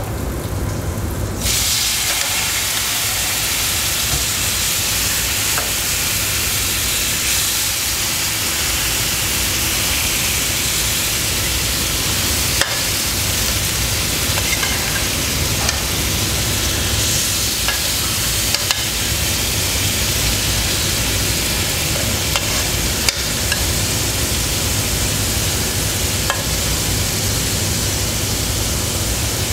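Vegetables and sour broth spooned into a frying pan of hot coconut oil and shrimps, setting off a steady sizzle that starts about a second and a half in. A metal spoon clicks against the bowl and pan now and then.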